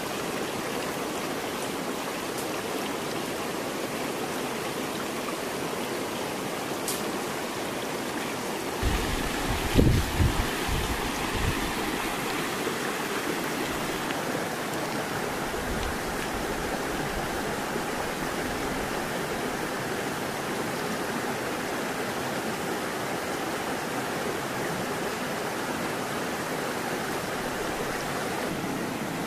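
Shallow stream running over rocks: a steady, even rushing of water. About nine seconds in, a few seconds of low rumbling with a couple of knocks rise over it.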